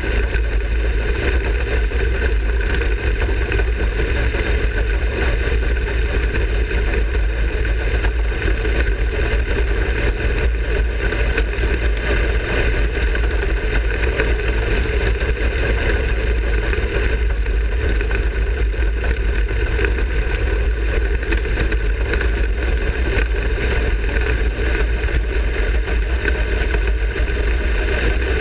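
360 sprint car's methanol-burning V8 engine running at a steady pitch, heard from inside the cockpit through an in-car camera, with a heavy low rumble.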